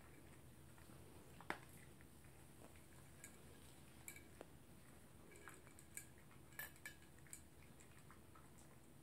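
A small poodle eating from its food bowl: faint, scattered clicks and clinks against the bowl, with one sharper click about a second and a half in and a run of them between about four and seven seconds.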